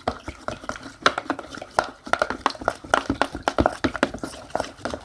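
Glue mixture being stirred in a bowl with colouring: a utensil clicking and tapping against the bowl irregularly, several times a second.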